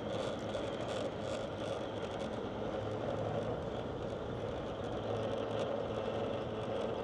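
Steady road and engine noise of a car driving at an even speed.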